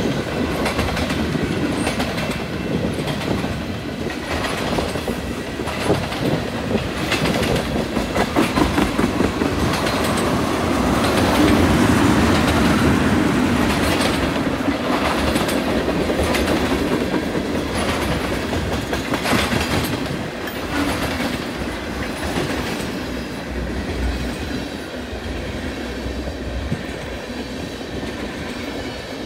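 Long string of freight tank cars rolling steadily past, the steel wheels clacking rhythmically over the rail joints under a continuous rumble.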